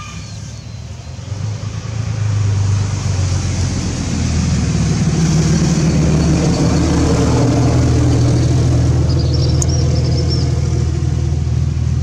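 A motor vehicle's engine running close by as a steady low rumble. It grows louder over the first two or three seconds, then holds steady.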